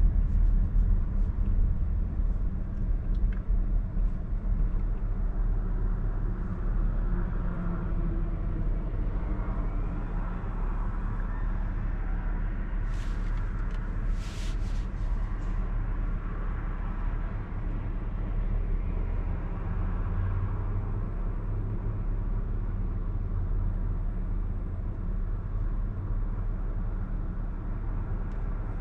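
Steady low rumble of a car heard from inside the cabin: engine and road noise as it turns, then the engine idling while it waits at a light. A few short hissing sounds come about thirteen to fifteen seconds in.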